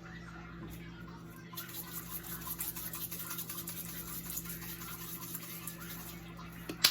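Red pepper flakes being shaken from a spice container onto chicken tenders: a fast, dense rattle that starts about a second and a half in and runs on, over a steady low hum. A sharp knock comes near the end.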